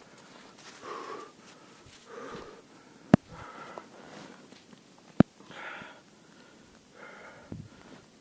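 A skier breathing hard, a breath roughly every second and a half, close to the microphone. Two sharp clicks stand out, about three and about five seconds in.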